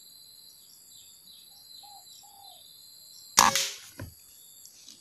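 Air rifle firing a single pellet shot about three and a half seconds in: one sharp crack that rings briefly, followed about half a second later by a fainter click. Before the shot, a steady high insect drone.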